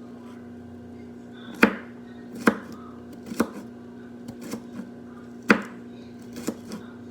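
A kitchen knife chopping on a cutting board in slow, irregular strokes, a handful sharp and loud with lighter taps between.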